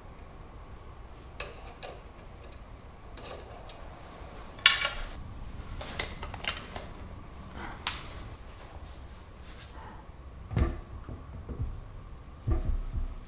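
Scattered metallic clicks and clanks of milling-machine parts and tools being handled, the sharpest about a third of the way in. Deeper thuds follow near the end as the heavy spindle-and-motor unit is lifted into place.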